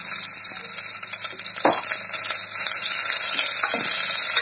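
Sliced onions sizzling in hot oil in a stainless steel pressure cooker, with a spoon scraping and clinking against the pot as they are stirred. The sizzle grows louder a little past halfway.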